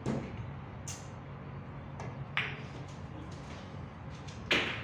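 Sinuca balls clicking off one another during play, a few sharp knocks with the loudest near the end, over a steady low hum.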